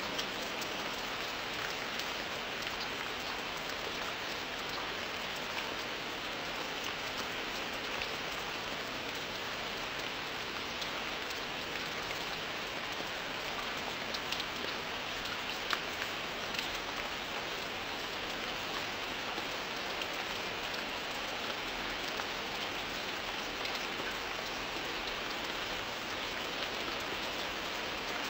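Steady rain falling on a surface, an even hiss with now and then a single drop ticking out above it.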